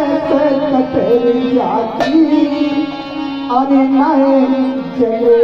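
Live Indian folk accompaniment through a PA system: a harmonium holding and moving through a melody over hand drums, with one sharp drum stroke about two seconds in.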